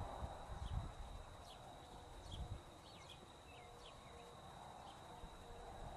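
Quiet open-air ambience: a low rumble under a steady faint high whine, with a few short, faint high chirps that slide downward, scattered between about a second and a half and four seconds in.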